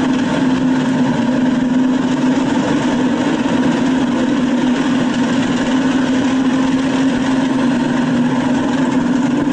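Column of tracked armoured vehicles, M113 carriers and M109 self-propelled howitzers, driving past in formation: a steady, loud diesel engine drone with no change in pace.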